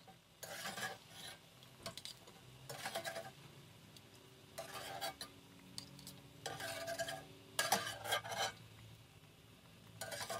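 A perforated steel spatula scraping and clinking against a stainless wire skimmer as fried biscuits are scooped out of the oil, in about seven short strokes a second or two apart.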